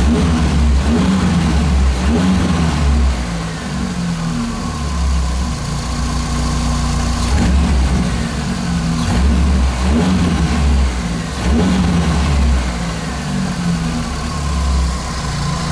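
Car engine running with diesel fuel mixed into its oil as a flush, its speed rising and falling a few times. The hydraulic lifter tapping seems to have gone, and it runs evenly.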